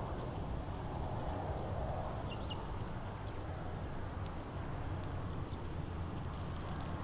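Steady low outdoor rumble of background noise, with a few faint, short, high bird chirps about two and a half seconds in.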